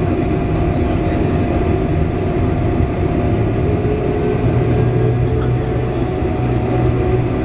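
Steady cabin noise inside a Boeing 747-400 taxiing after landing: a constant rush with a thin steady whine over it, and a low hum that grows stronger about halfway through.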